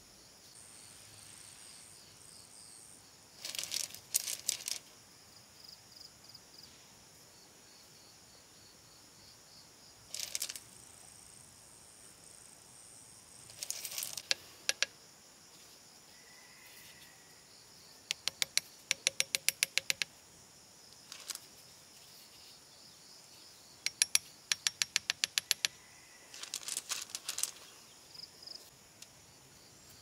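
Insects chirring steadily, broken by bursts of sharp stone clicks and clacks as river pebbles are handled and pressed into wet mortar on a pillar, including two quick runs of taps, about five a second, in the second half.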